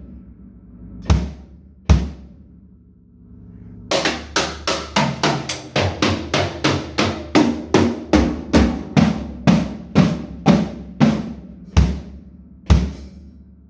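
Drum kit played with sticks: two hits, a short pause, then a steady run of drum strokes at about three a second, with a few heavier bass-drum thumps near the end and the drums ringing between strokes.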